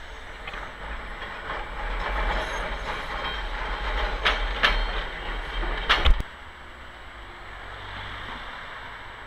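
A vintage Milan 'Ventotto' tram rolls past on street rails, its steel wheels rumbling and grinding along the track. There are a few sharp clacks over the rail joints. About six seconds in the sound cuts off abruptly to quieter street noise.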